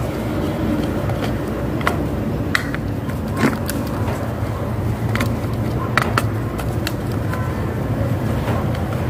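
Hands working on an industrial sewing machine's control box as it is taken apart: scattered light clicks and knocks of plastic and metal parts, over a steady low background rumble.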